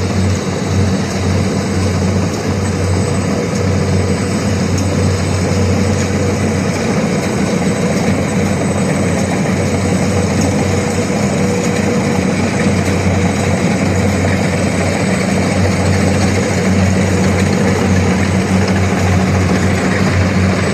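Diesel engine of a rice combine harvester running steadily at a constant speed, with a strong low hum and a dense machinery whir over it.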